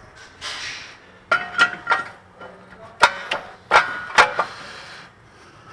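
Sharp metallic clanks and clinks, about seven of them, some ringing briefly, as a cast-iron rear brake rotor for a Ford Expedition is slid over the hub's wheel studs and settled into place.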